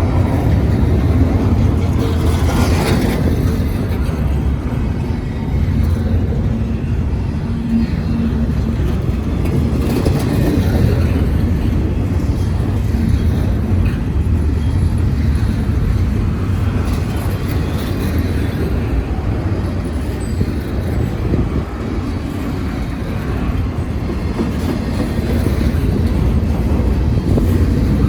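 CSX intermodal freight train rolling past at speed: a steady rumble of the cars' wheels on the rails.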